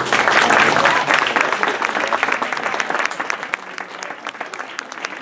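Audience applause, dense at first and thinning to scattered claps near the end.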